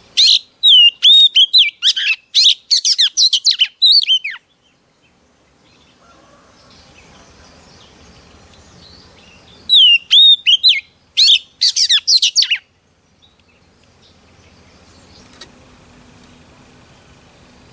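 Female oriental magpie-robin singing: two bouts of rapid, loud whistled notes, sweeps and chirps, the first at the start lasting about four seconds, the second a few seconds long about ten seconds in, with a pause between.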